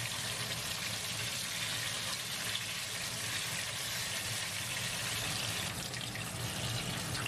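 Battered stuffed eggplant slices and stuffed green peppers deep-frying in a wok of hot oil, a steady, even sizzle.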